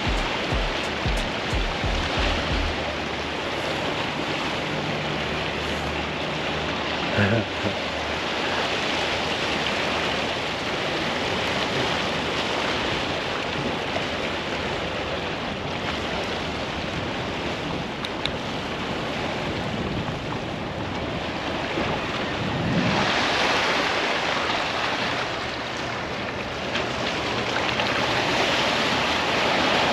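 Lake waves washing against the rocks of a breakwater, with wind buffeting the microphone. There is a brief louder sound about seven seconds in, and the wind and water grow louder from about two-thirds of the way through.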